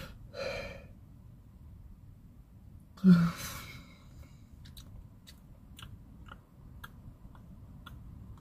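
A woman yawning aloud, then a short, loud, breathy vocal burst about three seconds in, followed by faint, steady ticking at about two ticks a second.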